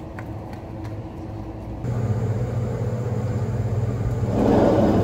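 Faint ambience with a few light clicks gives way, about two seconds in, to a louder steady low hum. Near the end it swells into a louder rushing noise.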